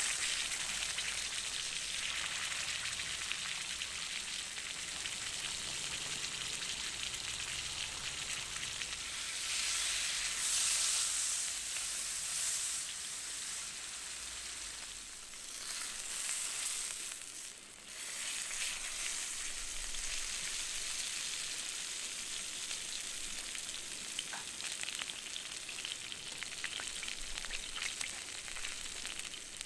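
Food sizzling and frying in a pan over a wood fire: a steady hiss that swells louder about ten seconds in and again around sixteen seconds.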